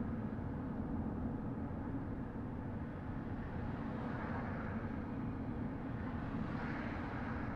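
Steady road and engine noise of a car driving, a low rumble with a hiss that swells briefly twice, about four and seven seconds in.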